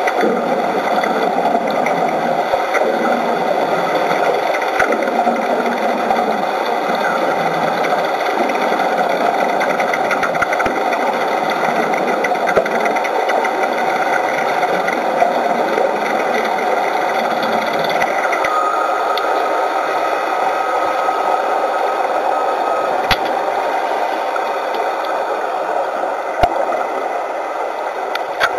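Steady mechanical buzzing with faint crackles, heard through water during underwater wet arc welding on a steel ship's hull; it eases a little about two-thirds of the way through.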